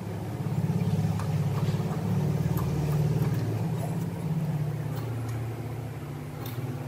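Low, steady engine drone of a passing vehicle. It swells about half a second in and eases off after about four seconds, with a few faint ticks over it.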